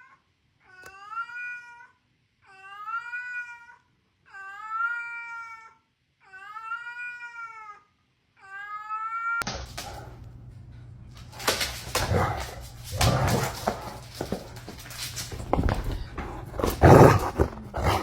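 A cat meowing over and over: five long, drawn-out meows about two seconds apart, each rising and then falling in pitch. About halfway through the sound cuts abruptly to loud noise with several sharp knocks.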